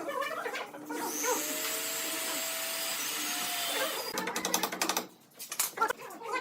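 A power tool runs steadily for about three seconds, starting about a second in, with clicks and knocks before and after it.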